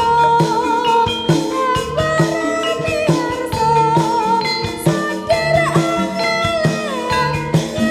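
Jaranan dance music played through a sound system: a percussion ensemble keeping a steady beat under a wavering, bending melodic lead.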